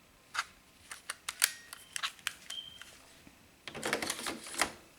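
A run of sharp plastic and metal clicks, then a denser clatter near the end, as a Sharp 4G100 boombox is handled and its controls and built-in micro cassette Walkman are worked by hand.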